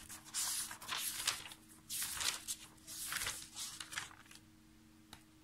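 Pages of a thick paperback textbook being turned by hand, about five papery rustles in quick succession over the first four seconds, then quieter. A faint steady hum sits underneath.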